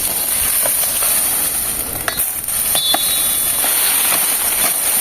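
Dry peach palm fronds rustling and crackling as they are cut and handled with a machete, with a few sharp knocks over a steady high hiss.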